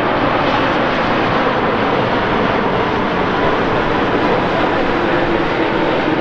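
Jet engines of an Air Canada Boeing 787-8 Dreamliner on arrival, a steady loud rush with a faint steady whine.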